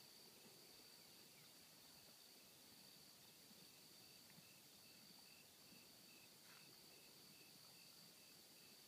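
Near silence with faint insect sounds: a steady high-pitched drone, and from a few seconds in, a cricket chirping evenly about three times a second.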